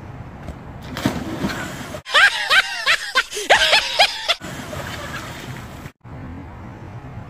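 A burst of high-pitched, repeated cackling laughter, dubbed as a meme sound, about two seconds long, cut in and out abruptly over a steady outdoor noise bed.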